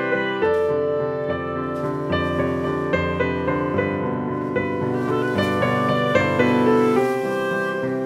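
Live instrumental ensemble music: a keyboard with a piano sound plays a run of notes over held notes from wind instruments.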